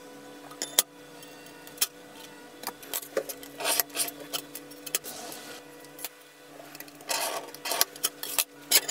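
Steel scribe scratching lines into a steel circular saw blade along a metal ruler, in short scraping strokes, with sharp clicks as the ruler and tools tap against the blade and bench.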